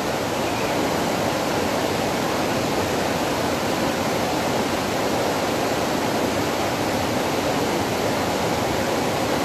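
Steady rushing noise of a waterfall, even and unbroken.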